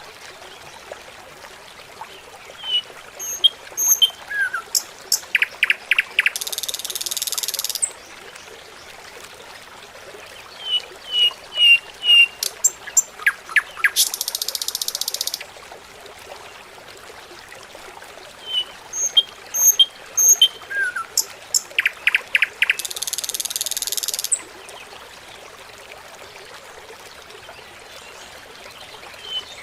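Looped nature ambience: bird chirps and clicking, frog-like calls with a short high buzzing hiss, the same sequence repeating about every eight seconds.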